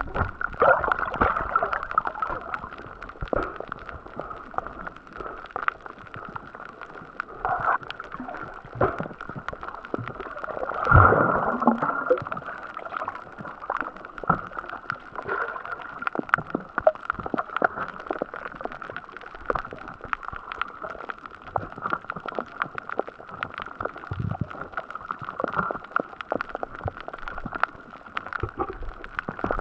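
Underwater ambience on a coral reef as picked up by an action camera underwater: a steady muffled hiss with constant fine clicking. About eleven seconds in there is a louder gurgling surge.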